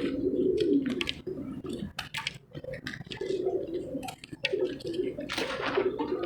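Dry, hard crumbly pieces crunching and breaking in sharp clicks, with a longer crumbling crackle about five and a half seconds in. A pigeon coos repeatedly in low, warbling phrases behind it.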